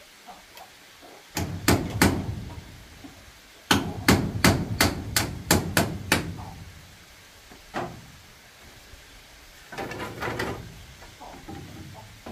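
Hammer blows on bamboo, struck in bursts: three strikes, then a quick run of about eight, a single blow, and a few softer strikes near the end.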